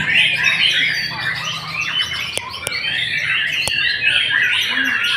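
White-rumped shama (murai batu) singing a dense, rapid stream of varied whistles and chattering phrases. Three sharp clicks are heard around the middle.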